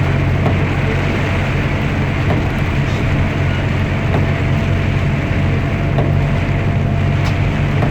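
Diesel engine of a 2008 Otokar bus running steadily, heard from inside the vehicle while driving, over a constant hiss of road and rain noise and a faint steady whine.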